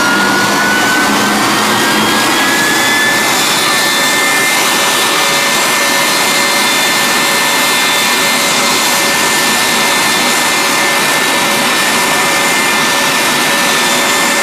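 Jet engines of the Shockwave jet truck running while the truck stands still. It is a loud, steady roar with a high whine that rises slightly over the first few seconds and then holds steady.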